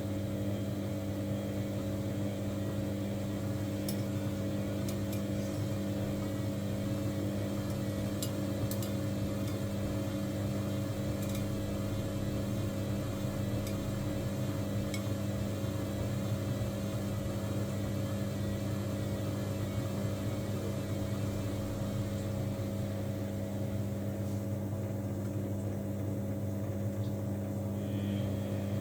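Samsung washing machine running with a steady, even motor hum and a few faint ticks.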